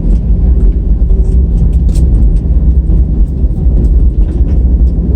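Cabin noise inside an Airbus A320 on the ground just after landing: a loud, steady low rumble from the engines and the wheels rolling, with scattered light rattles and knocks.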